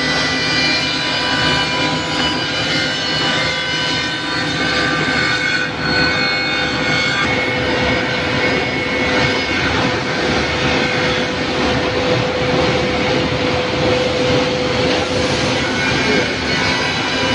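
Automatic double-end saw-and-milling machine (ECT-86A, crawler 'tank' feed) running. Its saw and cutter-head motors give a steady multi-tone whine and hum over dense mechanical noise as panels are fed through and trimmed.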